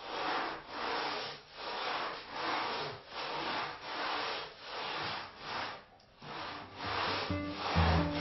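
Hand sanding of cured Bondo body filler on a fiberglass-covered foam plug: rhythmic back-and-forth rasping strokes about every three-quarters of a second, with a brief pause about six seconds in. Background music comes in near the end.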